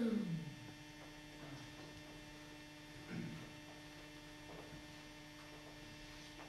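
Steady low electrical mains hum. A falling voice trails off right at the start, and a brief faint sound comes about three seconds in.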